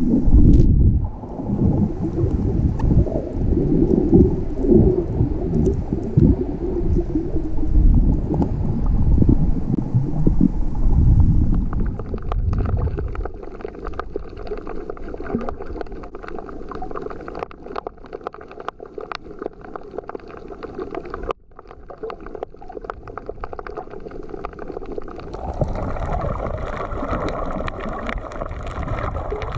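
Underwater sound picked up by a GoPro action camera's microphone: muffled rumbling and sloshing of water moving past the camera, which eases about twelve seconds in to a quieter hiss scattered with many sharp clicks and crackles, then swells again near the end.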